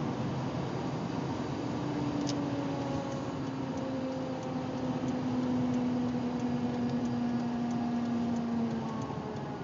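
Car coasting with a steady whine over road noise, its pitch sinking slowly; the tone breaks off near the end. This is the odd noise the car makes only when coasting, cause unknown.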